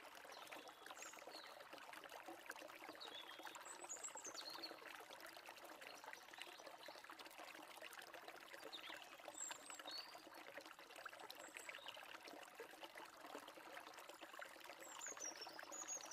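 Faint steady rush of a distant stream, with a few brief, faint, high bird chirps.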